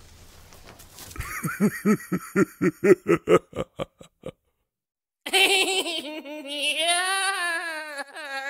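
A burst of laughter, a quick run of ha-ha-ha pulses lasting about three seconds. It stops dead, and after a second of silence a long wavering pitched sound follows, sliding down and back up.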